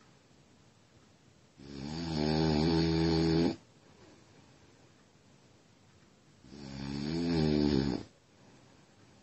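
A sleeping person snoring, recorded on a smartphone. There are two snores about five seconds apart, each growing louder over a second or so and then stopping abruptly.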